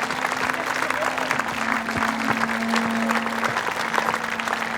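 A crowd applauding, many hands clapping steadily, with one low note held under it.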